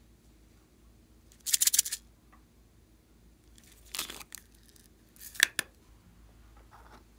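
Sprinkles rattling in a small plastic container as it is opened and shaken out over a bowl of slime, in three short bursts.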